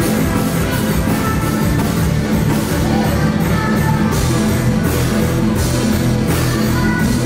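Live soca band music, played loud through the stage PA, with a steady beat and deep bass.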